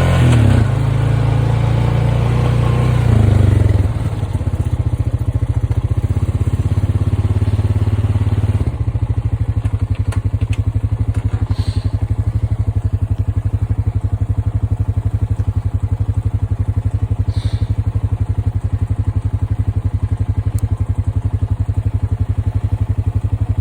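A vehicle engine running with an even, rapid pulse. It is louder and shifting for the first few seconds, then settles to a steady idle about four seconds in.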